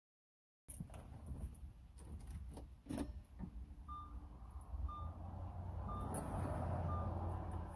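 Hands handling a car door speaker and its wiring inside the open door, with a few sharp plastic clicks and knocks, over a steady low rumble. From about halfway, a short high electronic beep repeats about once a second.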